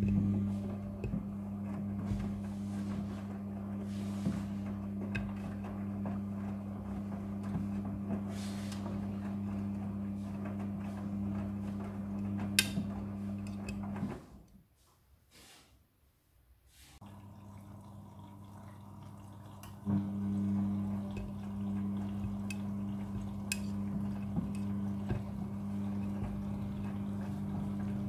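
Midea front-loading washing machine running with a steady electric hum and water flowing through it. It stops for a couple of seconds about halfway through, then starts again, first weaker and then at full strength.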